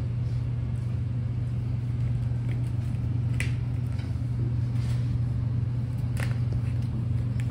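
A steady low hum, with a couple of sharp clicks about three and six seconds in.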